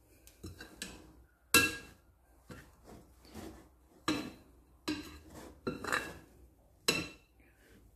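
Metal wire potato masher clinking and scraping against a glass mixing bowl as it works through a mashed potato mixture. About ten uneven knocks, each with a brief ring from the glass. The loudest come about a second and a half in and near the end.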